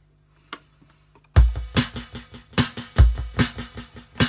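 A single soft click, then about a second and a half in a loud electronic drum beat with a deep kick drum starts up and keeps going.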